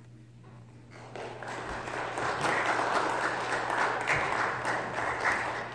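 Congregation applauding, building up about a second in and dying away near the end.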